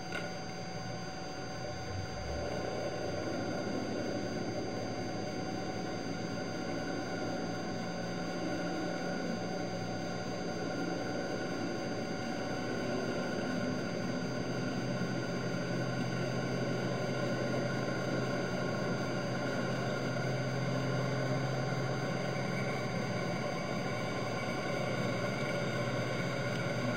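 Steady drone of a boat engine heard underwater, its low hum slowly growing stronger, under a constant faint high-pitched whine.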